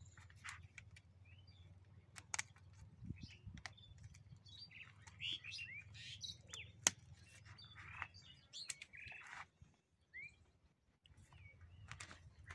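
Birds chirping in the background, short scattered calls, with several sharp clicks; the loudest click comes about seven seconds in.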